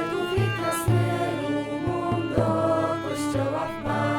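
Song accompaniment in a short gap between sung lines: sustained instruments over a steady low beat, about two beats a second.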